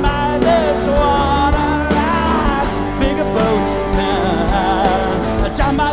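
Live rock band playing, taken straight from the soundboard mix, with a wavering melody line over a steady beat.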